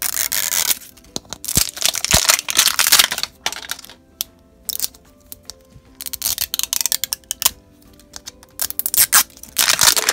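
Printed wrapper being peeled and torn off a toy capsule ball by hand, in several irregular tearing, crinkling bursts separated by short pauses.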